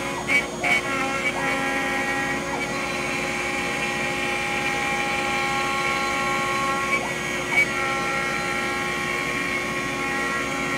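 A DeWalt router on a CNC machine is spinning a 1/4-inch roughing end mill and cutting a pocket in mahogany at a fast 96 inches per minute. It makes a steady high motor whine with cutting noise. There are brief wobbles in pitch as the bit changes direction, and a few sharp ticks near the start and again later.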